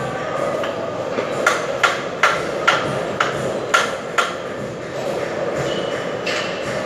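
A tool tapping against the wall: about seven sharp knocks in under three seconds, each with a short ring, over a steady background hum.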